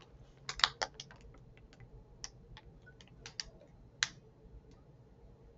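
Puffy clear plastic snack packaging being turned over and squeezed in the hands, giving irregular crinkles and sharp clicks, a cluster in the first second and a louder click about four seconds in.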